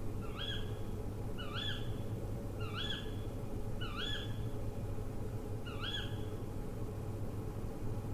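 An owl calling: a short whistled note that slides up and then holds, given five times at about one-second intervals. The calls stop about a second before the end.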